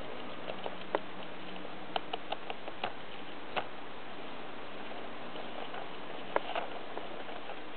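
Hamster rooting about in wood shavings: a few light, sharp clicks and rustles, bunched around two to three seconds in and again near the end, over a steady hiss.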